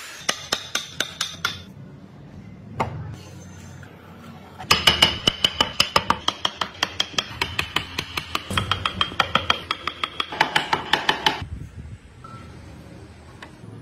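A steel chisel being hammered into a wooden block in quick, even strikes, about five a second. There is a short run of strikes at the start and a longer run of several seconds through the middle, with a faint metallic ring under the strikes.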